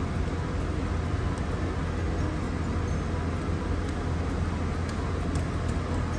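A steady low droning hum with a constant noisy rush over it, unchanging throughout, and a few faint small clicks.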